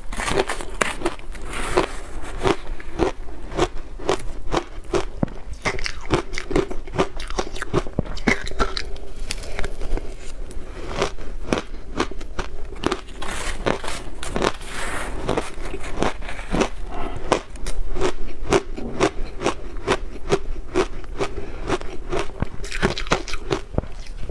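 Shaved blender ice mixed with milk powder being bitten and chewed. A rapid, continuous run of crisp crunches and crackles.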